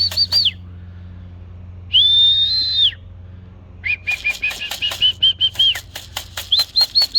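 Whistle calls for bringing young pigeons back in to the loft. A trilling burst comes first, then one steady note about two seconds in, then more trilling bursts that start lower and step up in pitch.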